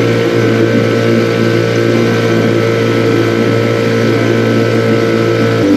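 Boat motor running at a steady speed under way on the river, its pitch dropping as it is throttled back near the end.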